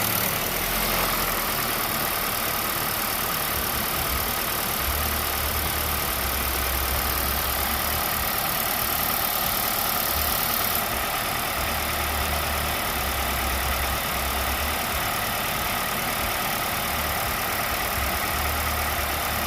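2021 Nissan Rogue's 2.5-litre four-cylinder engine idling warm and making a steady noise that the dealership says is no problem. A low hum under it comes and goes every few seconds.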